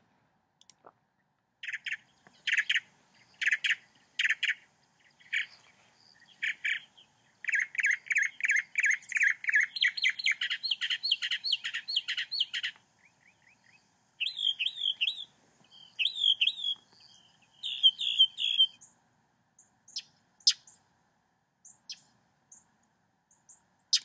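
Recorded northern mockingbird song: a string of high chirping phrases, each repeated several times in a row, including a fast run of rapid notes and a short downslurred phrase given three times. Near the end it thins to scattered single notes.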